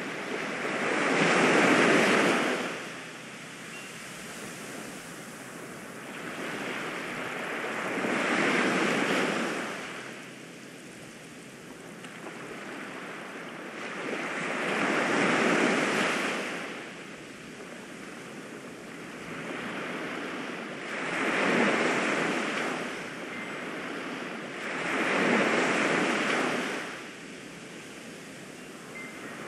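Ocean surf: waves washing in and drawing back in five slow surges, each rising and falling over a few seconds, about six seconds apart.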